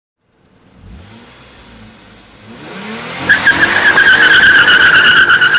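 Race-car sound effect for a logo sting: an engine revving up in gliding pitch sweeps, then from about three seconds in a loud, steady, high-pitched tire squeal.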